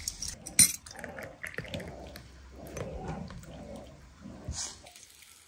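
A glass clinks sharply once, about half a second in, among low indistinct sounds, with a short hiss near the end.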